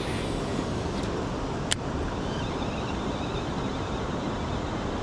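Steady rushing outdoor noise, heaviest in the low end, with one sharp click a little under two seconds in.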